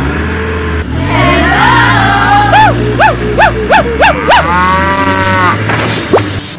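Animal sound effects over a steady low engine hum: a cow mooing, then five quick rising-and-falling hoots, then a longer arching call.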